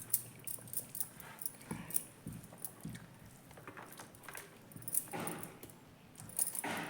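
A person chewing food close to the microphone: irregular wet mouth clicks and smacks, with a few louder bursts of chewing.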